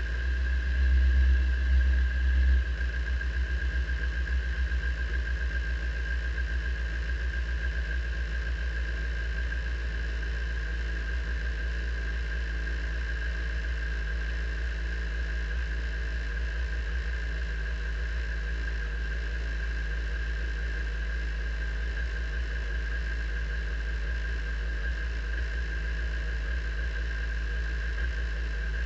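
Radical sports-racer's engine idling in neutral just after starting, a little higher and louder for the first two and a half seconds, then settling to a steady idle. A steady high-pitched whine sits over the engine note.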